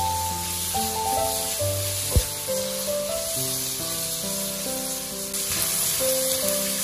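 Pork slices, garlic and red chili sizzling in hot oil in a stainless steel wok as a spatula stir-fries them, under background music. One sharp knock sounds about two seconds in.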